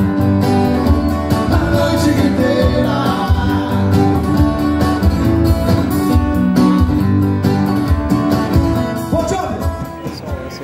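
Live acoustic duo playing through a PA system: strummed acoustic guitars with a man singing over a strong bass. The music drops away about nine seconds in.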